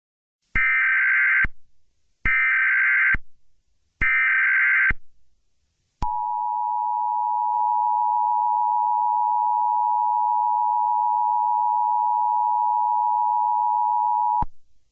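Emergency Alert System tones: three short data bursts of about a second each, the SAME header squawks, followed by the EAS two-tone attention signal held steady for about eight seconds and cutting off suddenly.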